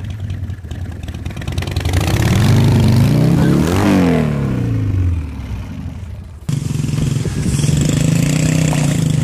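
A motorcycle engine revs up, peaking about four seconds in, then drops off. After an abrupt cut, a dirt bike engine runs steadily.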